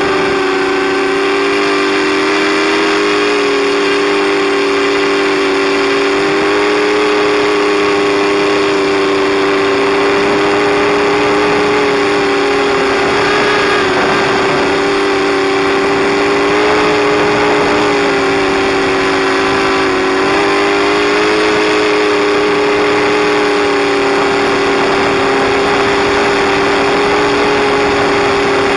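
FPV quadcopter's electric motors and propellers whining steadily in flight, heard close from the on-board camera. Two close tones hold level, with the pitch shifting slightly now and then.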